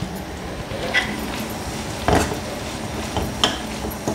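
Slotted steel spatula clinking and scraping against a stainless steel kadai while bean sundal is stirred with grated coconut: a handful of short, sharp metal clinks spread over a few seconds.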